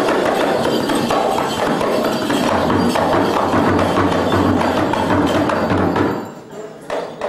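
Balinese gamelan playing the accompaniment to a Barong dance: struck metallophones with a kendang hand drum, and a low steady hum underneath from about two and a half to six seconds in. The music drops off about six seconds in and comes back in sharply near the end.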